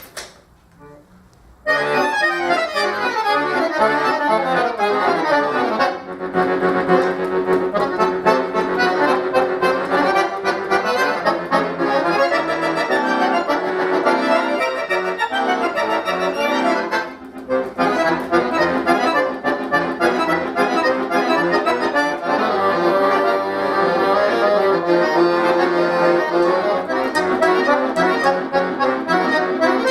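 Solo accordion playing a concert piece: a short quiet moment, then dense, many-note music begins about two seconds in, easing back briefly twice along the way.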